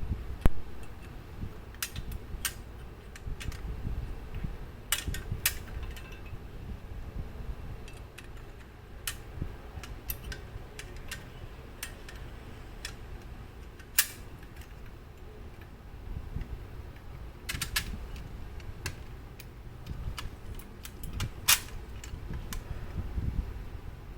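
Clock movement parts and small tools clicking and tapping at irregular intervals as they are handled, over a steady low rumble.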